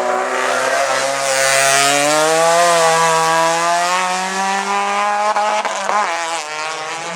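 Race car engine at high revs under hard acceleration, its pitch climbing over the first few seconds and then holding high, with a few sharp cracks about five to six seconds in.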